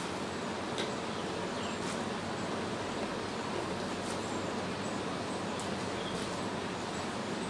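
Steady background hiss with a few faint, light clicks of hands against steel bowls as two people eat rice by hand.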